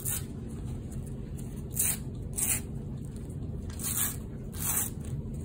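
NBA sticker pack wrapper being torn and peeled open by hand: about five short crinkling rips spread over the few seconds.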